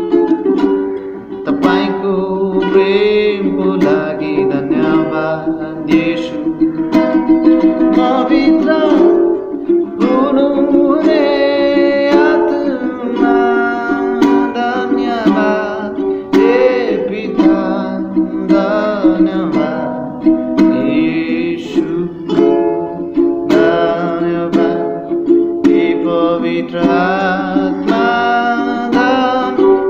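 A freshly repaired ukulele strummed in steady chords, with a man's voice singing along over it.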